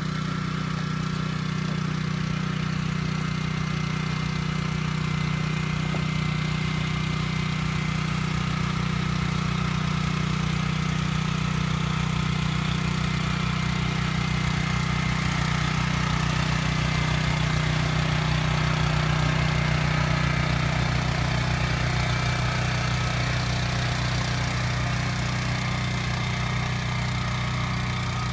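Small petrol engine of a boat-electrofishing raft running steadily at one speed, with a faint high whine above it.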